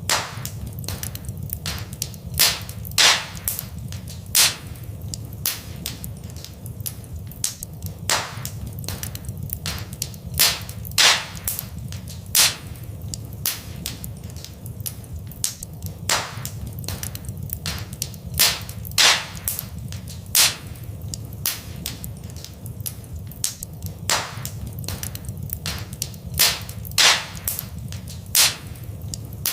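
Fireplace fire crackling: a steady scatter of small snaps, with louder sharp pops every second or few, over a steady low rumble of the flames.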